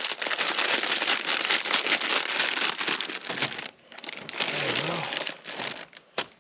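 Plastic crinkling and rustling in two stretches, with a short break a little past halfway, cutting off near the end.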